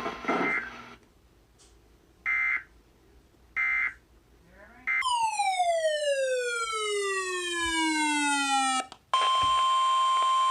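Emergency alert broadcast signalling: three short bursts of digital alert data, then a long electronic tone sliding steadily down in pitch for about four seconds, then a steady high alert tone starting near the end, the kind that opens a new weather radio warning.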